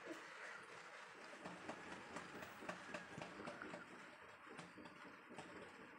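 Faint, irregular clicks and light knocks from firewood at a wood-fired stove, several a second from about a second and a half in.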